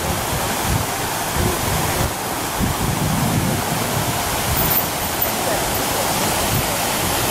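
Wind buffeting the microphone: a steady rushing noise with uneven low rumbles.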